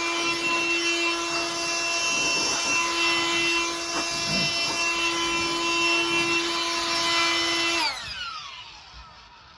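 Ryobi blower with a duster nozzle running at a steady whine, then switched off near the end and spinning down with a falling whine.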